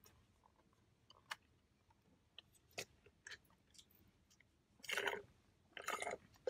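Close-miked chewing of fast food, with scattered small wet mouth clicks, then two louder noisy bursts about a second apart near the end.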